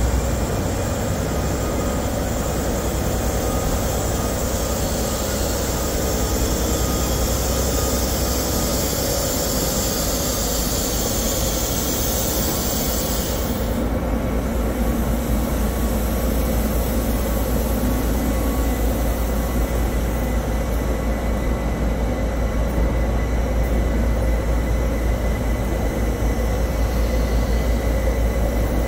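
A train standing at a station platform, its engines and equipment running with a steady low rumble and hum. A high hiss stops suddenly about halfway through, and a rising whine begins near the end.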